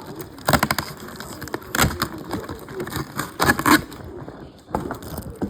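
Clicks and rattles from a toy car and its packaging being handled, in three short clusters.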